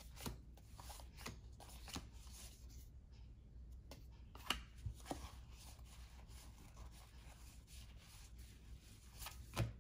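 Faint rustling and soft, irregular ticks of 1991-92 Fleer cardboard basketball cards being flipped and slid through the hands, with a few sharper flicks scattered through.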